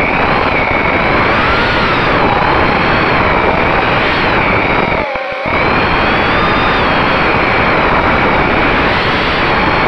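FPV racing quadcopter's brushless motors and propellers, heard through the onboard camera's microphone. The whine rises and falls with throttle over a steady rush of prop wash. About five seconds in, the throttle is cut back briefly.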